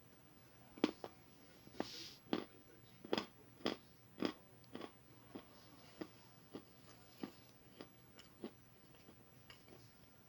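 Crunchy food being chewed: a regular run of crisp crunches, about two a second, louder in the first few seconds and fainter toward the end.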